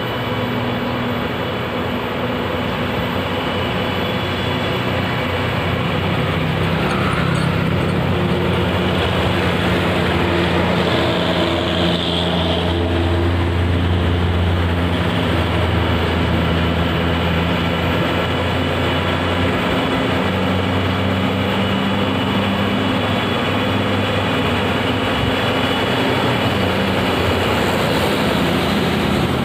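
Road traffic: fully loaded UD Quester heavy trucks and buses come on with a steady low diesel engine drone that swells in the middle, while motorcycles pass close by.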